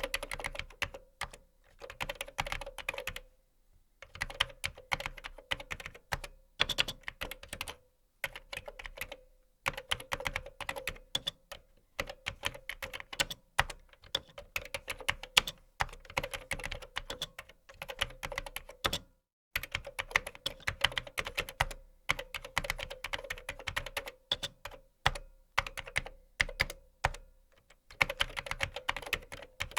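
Typing on a computer keyboard: quick runs of key clicks broken every few seconds by short pauses.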